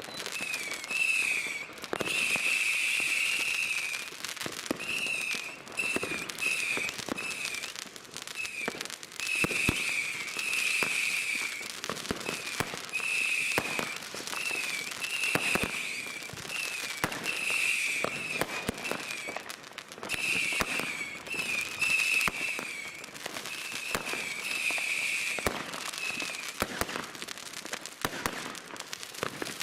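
Whistling firework battery, the "Lord of Whistle", firing shot after shot: a long run of shrill whistles, each lasting up to a couple of seconds, that stops near the end. Sharp firework bangs go off throughout.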